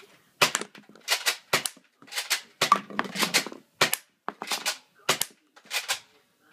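Air gun firing a rapid string of sharp cracks, about two or three a second.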